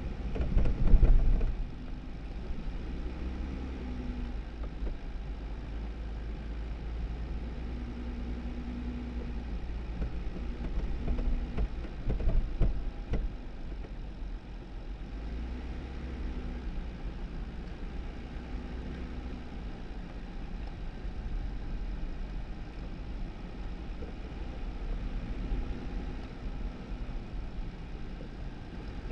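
2018 Jeep Wrangler driving slowly on a snow-covered dirt road: steady engine and tyre rumble, with louder knocks from bumps about a second in and again around twelve to thirteen seconds.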